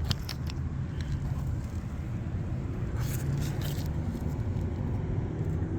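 Steady low rumble of nearby road traffic, with a few clicks about three seconds in.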